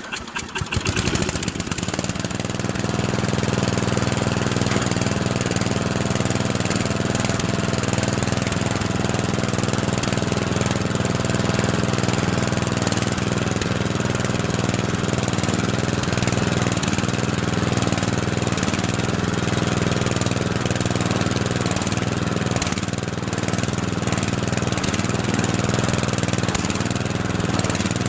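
Ride-on lawn mower engine starting straight away: a second or so of cranking and catching, then running steadily.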